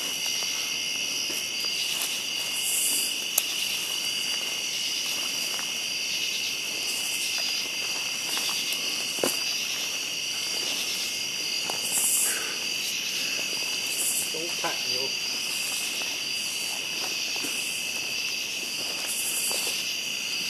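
Night insect chorus: crickets trilling steadily at several pitches, with louder high buzzing pulses every second or two. A couple of sharp snaps break through, one about three seconds in and one about nine seconds in.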